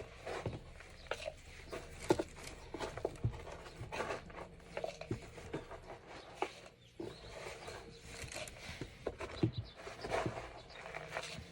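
Cat litter being scooped: irregular scrapes, rustles and small clicks of litter granules in a small room.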